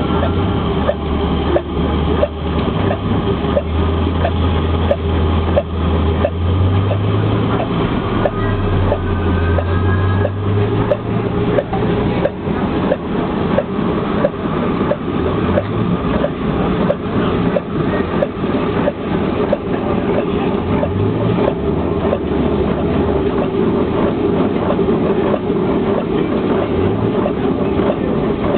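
Home-built hot air (Stirling-cycle) engine running, with a regular clicking knock about two a second over a steady mechanical hum and a low drone.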